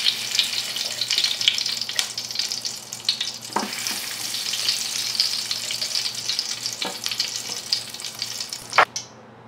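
Ghee sizzling as spoonfuls melt in a hot, empty metal cooking pot, with a few sharper clicks through it. The sizzle cuts off abruptly near the end.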